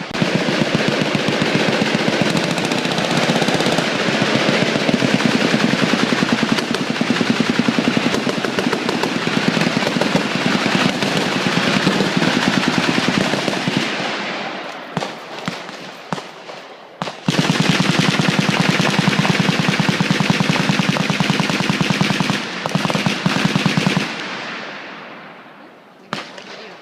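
Sustained automatic gunfire: long strings of rapid shots for about fourteen seconds, a few seconds of scattered shots, another long stretch of rapid fire, then only a few scattered shots near the end.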